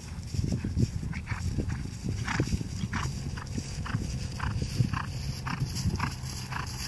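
A ridden mare cantering across a dry field, with muffled hoofbeats in a steady rhythm about twice a second over a low rumble.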